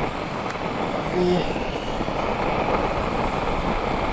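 Wind blowing across the microphone: a steady rushing noise.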